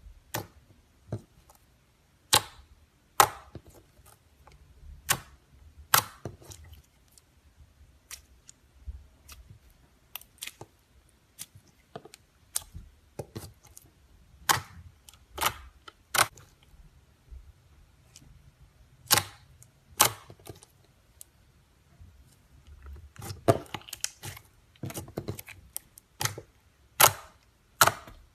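Slime being squeezed and poked, giving irregular sharp clicks and pops, with a denser run of pops near the end.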